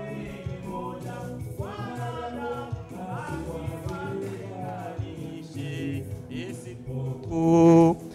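A group of voices singing a song together. About seven seconds in, a single much louder voice joins close to the microphone.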